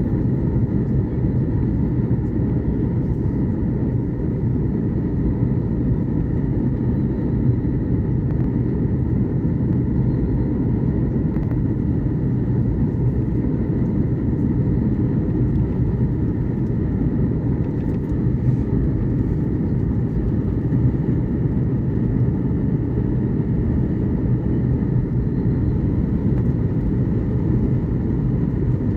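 Steady in-flight cabin noise of a Boeing 737 MAX 8: a constant low rush of airflow and jet engine noise, with faint steady tones on top.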